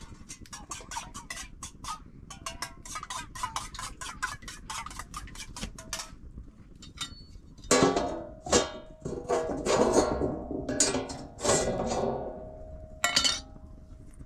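Metal pots and dishes being handled: a fast, even run of light taps, then from about halfway several louder clanks that ring on.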